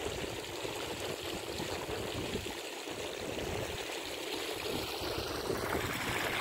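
Floodwater running through a breach in a paddy-field bund: a steady rush of flowing water that grows a little louder near the end.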